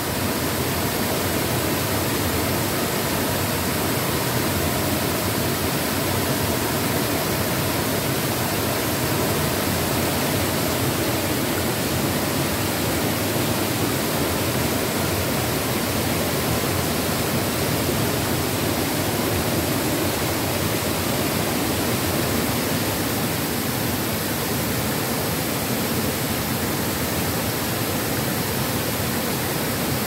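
Waterfall: water rushing and splashing over rocks in a steady, unbroken rush of noise.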